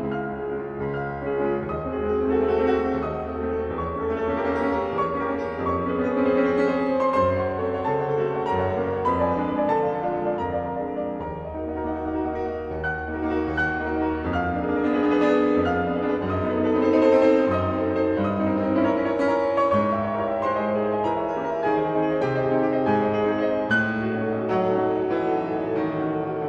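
Solo piano playing classical music: a dense, flowing run of notes over held bass notes.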